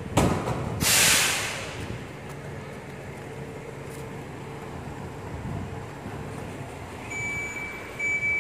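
Volvo FE 300 recycling truck running, with a loud hiss of released air about a second in and a steady engine hum after it. Near the end its reversing alarm starts beeping, about once a second.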